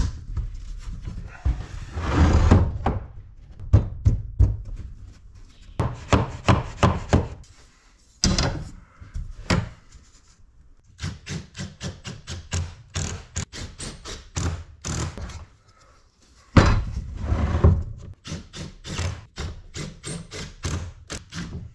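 Wooden knocks and thunks as the rails and stiles of a frame-and-panel door are fitted around their panels and tapped together on a workbench. Later there are runs of quick, even taps, about three a second.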